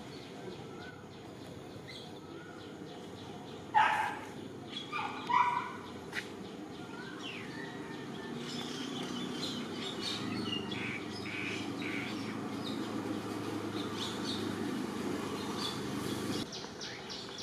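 Birds chirping, with two short, loud animal calls about four and five and a half seconds in. A low rumble builds from about eight seconds and cuts off suddenly near the end.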